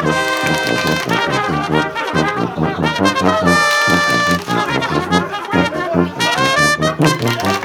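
Polka music played on brass instruments, with a steady pulsing bass beat under long held horn notes.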